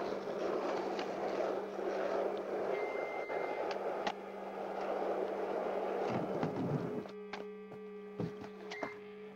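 Skateboard wheels rolling over rough asphalt: a steady gritty rumble that fades out about seven seconds in. A couple of sharp knocks follow near the end.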